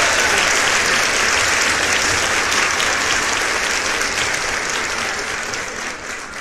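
A crowd applauding, a dense even clapping that fades out gradually toward the end.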